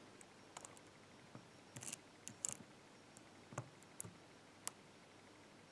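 Faint, scattered metallic clicks of a hook pick working the pins of an old Ruko pin-tumbler cylinder under tension, a handful over several seconds with two short clusters a little after the first two seconds.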